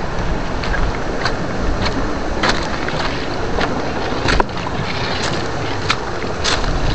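Water sloshing and splashing with wind rumbling on the microphone, broken by irregular sharp clicks or splashes.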